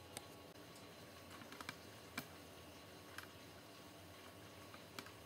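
Near-silent room tone with about six faint, sharp clicks at uneven intervals, the clearest about two seconds in.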